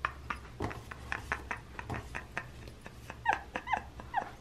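A dog whimpering: a quick series of short, falling whines in the last second or so, after a run of quick soft clicks.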